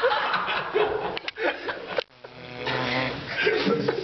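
A man snoring, one long snore starting about two seconds in, with people nearby chuckling and talking under their breath.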